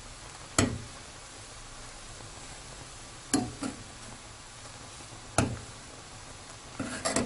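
Metal spoon knocking against the side of an aluminium pot while stirring ramyeon noodles in boiling milk, over the steady bubbling hiss of the boil. The knocks come at irregular intervals: once early, a pair near the middle, once more, and a quick cluster near the end.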